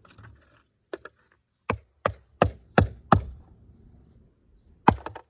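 A tool striking the plastic casing of an old Lifesaver smoke alarm: two light taps, then five quick hard blows at about three a second, and one more blow near the end.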